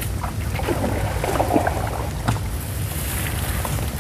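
Wind buffeting the microphone as a low steady rumble, with rustling leaves and a few short snaps as genjer (yellow velvetleaf) stems are picked by hand.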